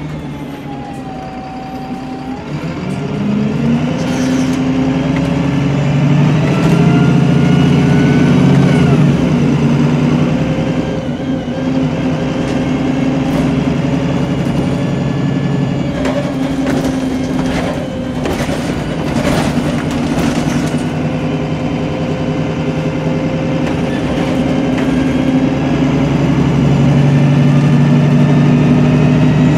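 Diesel engine of a Cummins-re-engined MAN 18.240LF single-deck bus, heard from the rear seats as the bus accelerates on the road. Engine pitch rises from a couple of seconds in, eases about ten seconds in, and pulls hard again near the end, with a few knocks and rattles in the middle.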